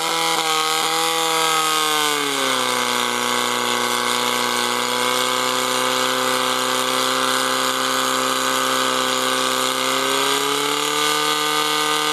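Portable fire pump engine running hard at high revs, pumping water out through the hose lines. Its pitch drops about two seconds in, holds steady, and rises a little near the end.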